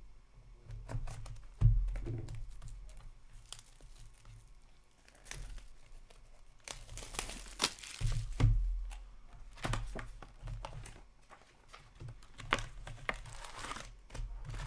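A 2019-20 Upper Deck Series One hockey card box being cut open and unpacked: cardboard tearing and foil packs crinkling, densest about halfway through, with a couple of dull knocks on the table.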